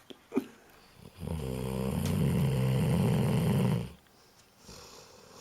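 A 15-year-old dog snoring: one loud snore starting about a second in and lasting nearly three seconds, then a softer breath out near the end.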